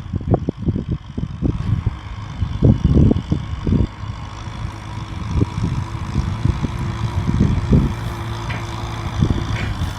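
Kubota M6040 SU tractor's diesel engine running steadily, with irregular low thumps over it that are heaviest in the first four seconds.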